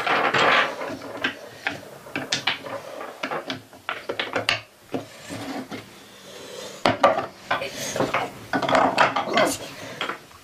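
Wooden puzzle blocks clacking, knocking and scraping against each other and the base board as a wooden mosque model is pieced together quickly by hand: a busy, irregular run of small wooden knocks.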